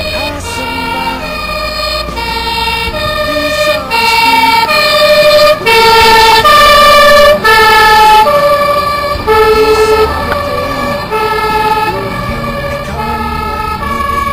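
Dutch fire engine's two-tone siren, alternating a high and a low note about once a second, with the truck's engine rumbling under it. It grows louder as the truck drives past, loudest around the middle, then fades as it moves away.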